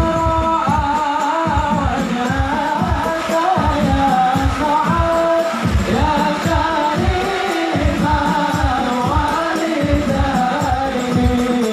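Devotional sholawat sung to the Prophet at a Maulid, a melodic sung line over a steady beat of hand drums at about three strokes a second.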